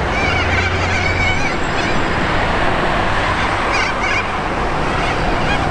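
Volvo city bus's engine running as it pulls away and turns, with road noise. High squeaks sound over it in the first second or so and again about four seconds in.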